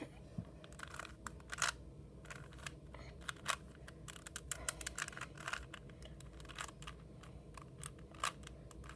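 Plastic 3x3 Rubik's cube being turned by hand: a run of quick, irregular clicks and clacks as its layers snap round.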